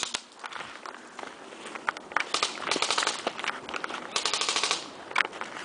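Airsoft M4 electric rifles firing in rapid bursts of quick clicking shots. The longest runs come in the middle, with single shots between them.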